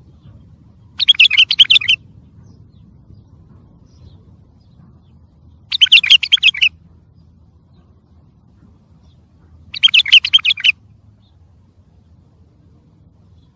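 Wild bulbul singing three short, rapid warbling phrases, each about a second long and several seconds apart.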